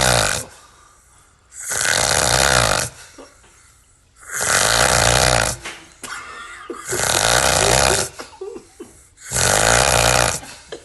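A person snoring loudly and harshly, "like a chainsaw": a rasping, rattling snore about a second long, repeated four times about every two and a half seconds, with the end of another at the very start and quieter breathing between.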